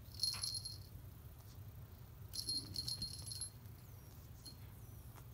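The small bell on a feather wand toy jingles in two bursts, about a quarter second in and again from about two to three and a half seconds, as a kitten chews and tugs at it. Underneath runs a low, steady growl from the kitten guarding the toy.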